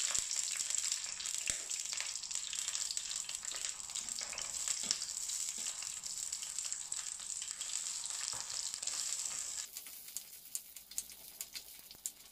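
Whole shallots sizzling and crackling in hot sesame oil in a clay pot as they are dropped in. The sizzle drops off sharply near the end, leaving scattered crackles.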